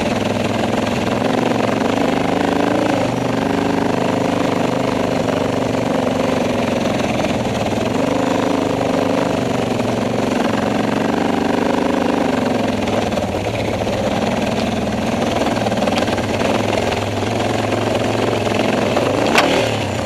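Off-road motorcycle engine running at low trail speed, its pitch rising and falling as the throttle is worked over rough, rocky ground. A single sharp knock comes near the end.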